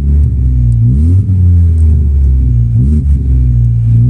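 VW Bora's 2.0 four-cylinder engine through a sport exhaust, blipped in short revs over idle. The pitch rises near the start, about a second in, and near three seconds. The note is a soft little rumble ("ronquinho, bem suave").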